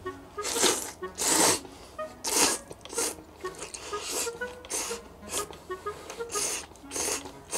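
A person slurping thick Jiro-style ramen noodles together with lumps of pork back fat: a rapid series of loud, hissing slurps, about one or two a second, with faint background music underneath.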